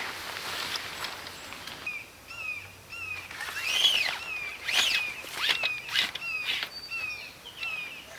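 A bird calls a steady run of short, falling chirps, about two to three a second. Several loud swishing sounds break in over the middle of the run.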